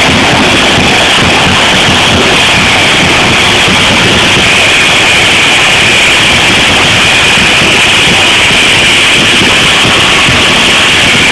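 Loud, steady din of a large stadium crowd, an unbroken wash of noise.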